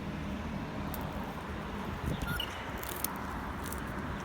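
Steady background noise with a brief faint chirp from a grey treepie about two seconds in.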